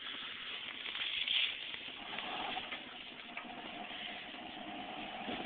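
A truck engine running under a steady hiss, with a faint steady whine coming in about two seconds in.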